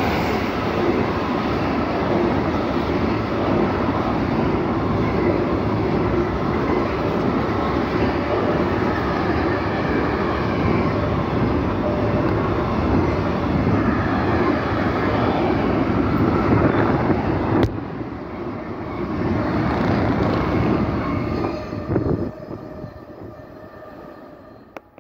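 Intermodal freight train of pocket and container wagons passing at speed: a steady noise of wheels running on the rails, with one sharp knock about two-thirds of the way through. The noise dies away near the end as the last wagon goes by.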